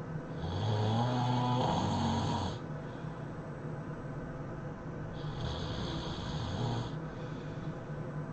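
A person snoring: two long snores about five seconds apart, the first louder and about two seconds long.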